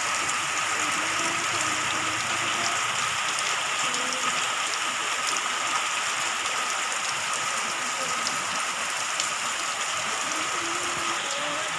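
Rain falling steadily, an even wash of drops with no let-up.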